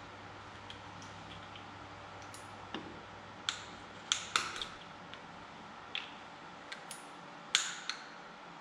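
Lug-bolt caps being prised off a car wheel and set down on the concrete floor: a series of short, sharp clicks and clacks, irregularly spaced, starting about three seconds in.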